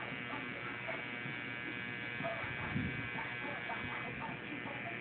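Electric hair clippers running with a steady buzz as they cut hair along the side of the head.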